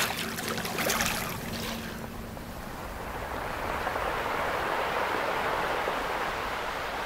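Sea water splashing and lapping around a swimmer, with a low steady hum under it; from about two seconds in this gives way to a smooth, even rush of surf-like noise.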